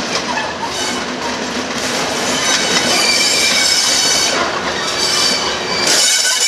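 Class 37 diesel locomotive 37905 (D6838), Ruston-engined, approaching slowly over pointwork: a steady engine rumble under a high wheel squeal that builds from about two seconds in. The low rumble falls away near the end.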